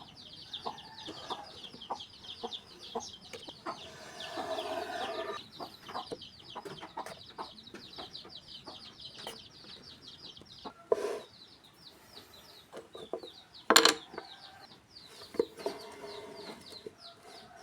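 Chicks peeping: a continuous rapid train of short, high, falling peeps, several a second. Under it come scattered knocks and taps, with a thud about 11 seconds in and one sharp, loud knock about 14 seconds in.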